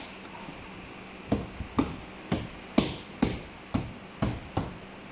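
Mercedes C-Class inner door trim panel being knocked and pressed into place by hand, about nine sharp knocks in quick succession beginning about a second in, as the panel's clips are seated.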